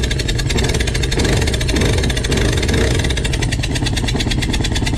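Honda Aquatrax F-12X turbo jet ski's four-cylinder four-stroke engine running steadily on only three of its four cylinders, one plug still left out while rust is worked off the valves after more than two years of storage.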